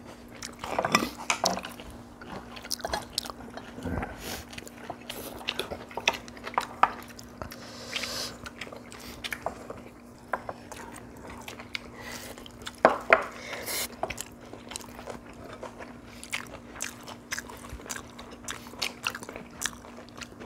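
People eating at a table: chewing and crunching mouthfuls, with chopsticks clicking against dishes and bowls, loudest about two-thirds of the way through. A faint steady hum runs underneath.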